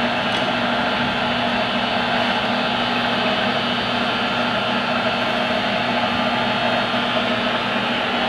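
1964 Monarch 10EE toolroom lathe running under power with its cross slide on power feed: a steady, even mechanical hum with several held tones.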